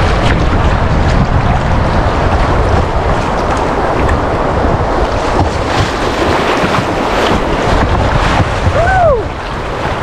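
Rushing whitewater of river rapids around a kayak, with wind buffeting the microphone and paddle blades splashing. Near the end, a short call rises and falls in pitch.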